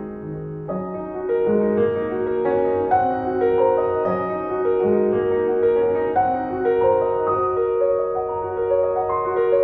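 Background piano music: a slow, gentle piece of overlapping held notes.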